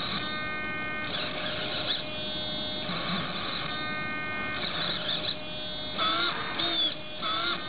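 Hobby King hobby servo driving a 2-to-1 plastic gear pair on a 3/8 in stainless ball valve, whirring in short bursts as it turns the valve to the angle set by a potentiometer. A steady high whine runs between the moves. Near the end the bursts come quicker and shorter, with a wavering pitch.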